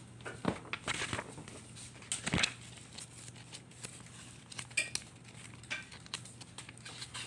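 Light household clatter: scattered short knocks and clicks, with a few brief ringing clinks about five seconds in, like dishes and cutlery being handled.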